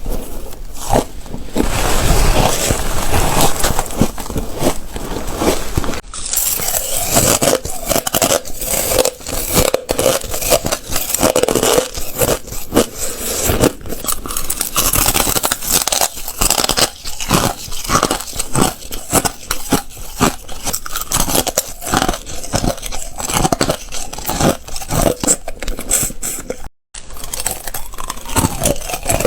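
Ice being bitten and chewed: a dense, irregular run of sharp crunches and crackles, broken by a brief silence near the end.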